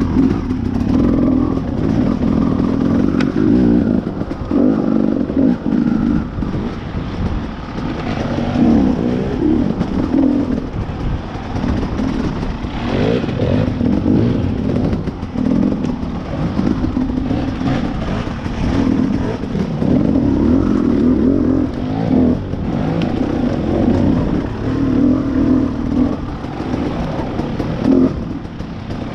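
Off-road motorcycle engine under way on a trail, the throttle opening and closing so the engine note rises and falls every second or two.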